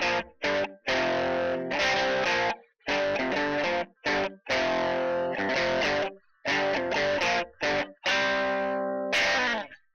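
Background music: distorted electric guitar playing stop-start chords, each block cut off sharply by a brief silence.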